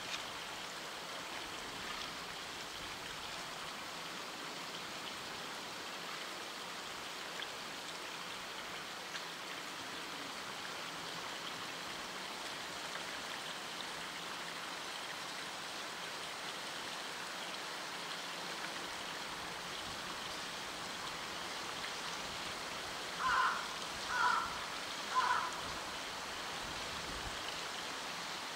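Steady rush of flowing water in a polar bear enclosure's pool. Near the end, three short calls about a second apart stand out over it.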